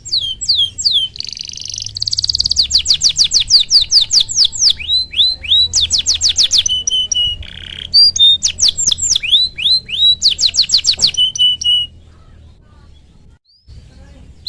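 Domestic canary singing: long rapid rolls of repeated falling chirps, mixed with buzzy notes and short held whistles. The song breaks off near the end.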